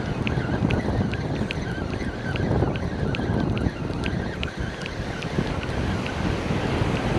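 Wind blowing across the microphone over breaking surf, with a faint, regular ticking about two to three times a second.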